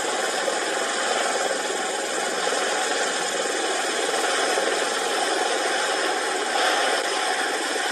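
V-22 Osprey tiltrotor's engines and rotors running steadily in a hover, heard as an even rushing noise. It is played back through a screen's small speaker, so it comes out thin, with no deep bass.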